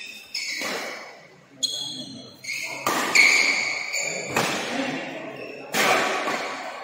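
Badminton rally: rackets strike the shuttlecock several times about a second apart, with short high squeaks of players' shoes on the synthetic court mat, echoing in a large hall.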